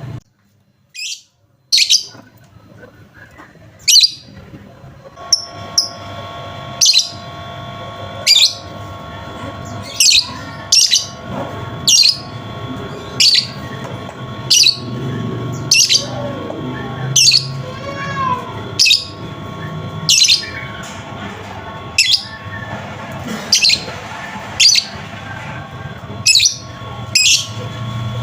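Lovebird chirping: loud, sharp, downward-sweeping chirps repeated about once every second or so, over a faint steady background of tones.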